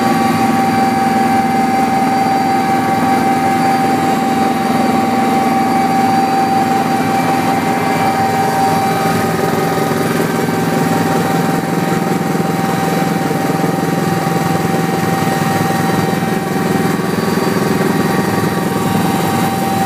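Cockpit noise of a Sikorsky S-76C+ twin-turbine helicopter in flight: a steady drone of turbines, rotor and gearbox with a high, steady whine running over it.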